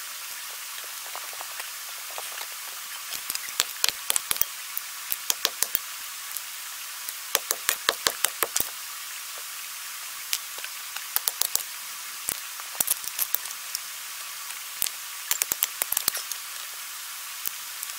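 Hand digging in stony ground: runs of sharp clinks and knocks as steel digging tools strike and scrape against rocks, with short pauses between.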